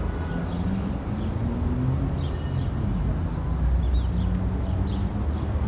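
Outdoor street ambience: a steady low rumble with a few short, high bird chirps scattered through it.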